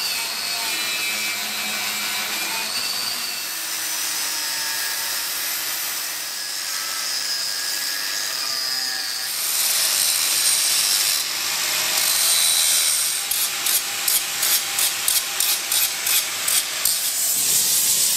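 Angle grinder grinding titanium tongs clamped in a vise, its motor whine wavering as it bites into the metal. In the last few seconds the grinding sound pulses about three times a second.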